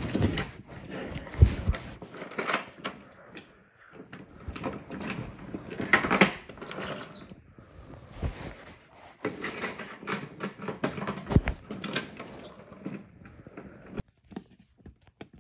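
Irregular rustling, clatter and knocks of handling, as a phone and wooden toy trains are moved about, with two sharp thumps about a second and a half in and again near eleven seconds.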